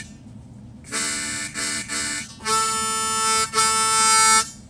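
Hohner Special 20 diatonic harmonica played: two short notes about a second in, then two longer, louder held notes near the end. It is being played to check the tuning of a reed just filed flatter.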